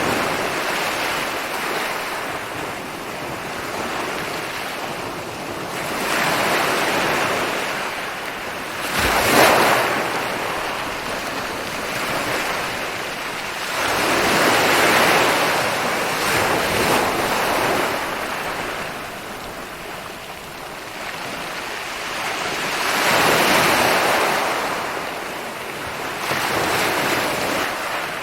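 Ocean waves rolling and breaking on a beach: a continuous wash of surf that swells as each wave breaks every few seconds, the sharpest break about nine seconds in.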